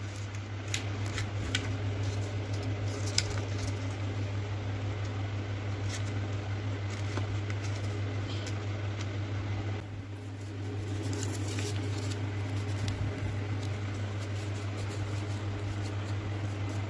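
Sheets of white paper being folded and creased flat by hand, with scattered soft crackles and rustles, over a steady low hum.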